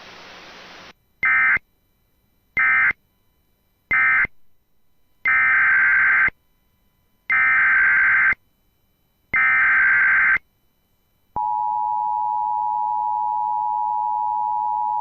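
Weather radio Emergency Alert System tones. After about a second of radio static come six buzzy digital SAME data bursts, three short and then three longer ones about a second apart. Then the steady NOAA Weather Radio warning alarm tone sounds for about four seconds, signalling a new alert.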